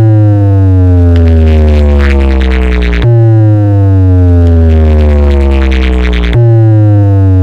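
Stack of DJ loudspeaker boxes blasting a loud electronic bass tone over a heavy steady bass. The tone slides down in pitch and restarts abruptly about every three seconds, a little after 3 s in and again near the end.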